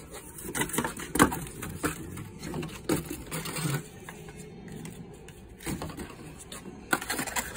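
Cardboard box and paper packaging being handled and unfolded while a plastic chicken feeder is unpacked: irregular rustling with scattered clicks and light knocks.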